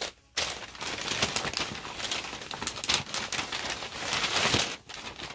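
Paper wrapping crinkling and rustling in hands as an item is unwrapped, a dense crackle that starts just after the opening moment and eases near the end.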